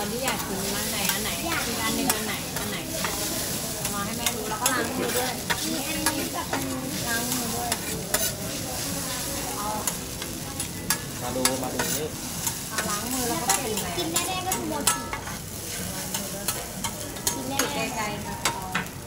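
Food sizzling on a teppanyaki griddle, a steady hiss broken by many sharp metallic clicks and scrapes of the chef's spatulas on the steel plate.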